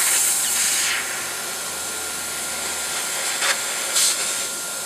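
High-pressure air hissing steadily out of the open bleed valve of a Kalibrgun Cricket PCP air rifle's air tube as the tube is depressurised. Loudest in the first second, with two short louder spurts near the end.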